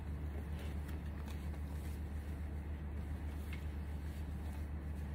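A steady low hum, with faint rustling and a few light clicks as shirts on hangers are handled.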